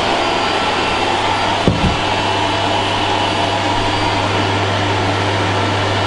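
Vacuum cleaner running steadily with a constant hum, with two short low thumps a little under two seconds in.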